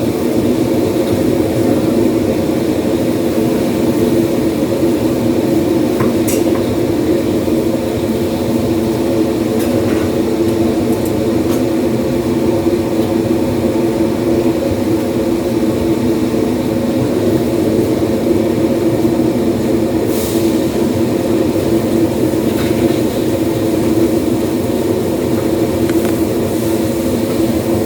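A loud, steady mechanical drone, like a motor or fan running, with a few faint clicks along the way.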